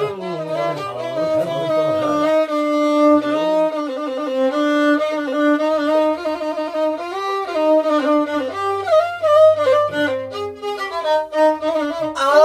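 Solo violin playing a melodic instrumental passage, with held notes, sliding pitch changes and quick ornaments.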